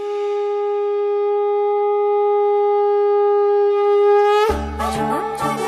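A conch shell (shankha) blown in one long steady note, bending slightly upward just before it breaks off about four and a half seconds in. Music with a steady beat then comes in.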